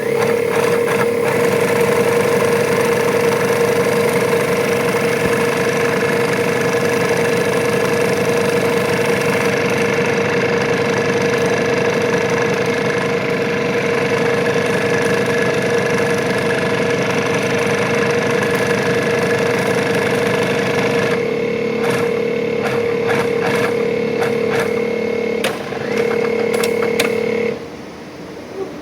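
Juki LU-2860 twin-needle walking-foot sewing machine with side knife running at speed, a loud steady whine, stitching heavy material with the edge knife engaged. About 21 seconds in the hiss drops away and a run of sharp clicks follows, and the machine stops shortly before the end.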